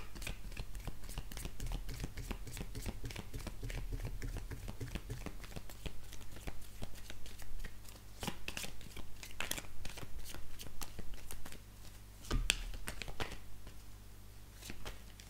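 Oracle cards being shuffled by hand: a quick, uneven run of soft card flicks and slaps, with a louder tap against the table about twelve seconds in.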